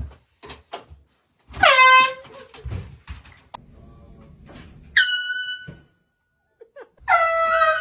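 Short blasts of a handheld air horn, three times, each under a second; the one about five seconds in is higher-pitched. Small knocks and clatter come between the blasts.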